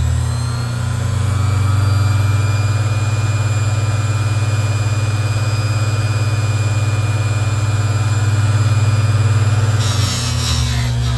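Bench grinder with a wire wheel running at a steady hum while it brushes a Zippo lighter's insert. About ten seconds in the sound changes, with a short burst of scratchy, clattering noise.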